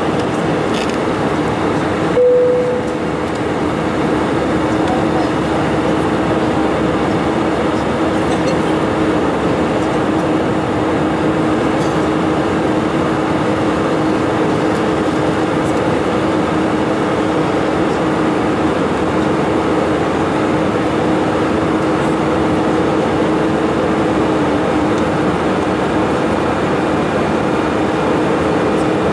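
Steady cabin noise of an Airbus A320-family airliner at cruise: an even rush of airflow and engine noise with a steady two-note hum beneath it. There is a brief blip about two seconds in.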